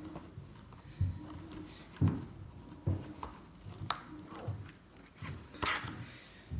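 Homemade glue slime being kneaded and squished by hand: irregular soft squelches and slaps about once a second, with small clicks and a louder, hissier squelch near the end.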